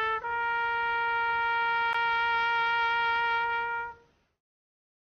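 Soundtrack music: a solo trumpet-like horn moves up a step and then holds one long note, which fades out about four seconds in.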